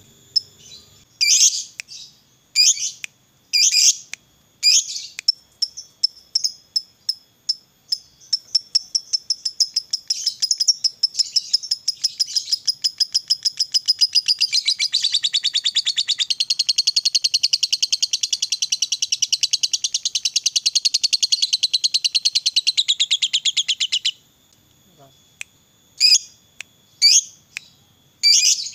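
Lovebird calling: a few sharp separate chirps, then notes coming faster and faster into one long rapid chattering trill of about fifteen seconds that stops abruptly, followed by a few more single chirps near the end. This long chatter is the 'ngekek panjang' prized in fighter lovebirds.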